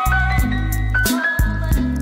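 Background music with a steady drum beat, a bass line and held melody notes.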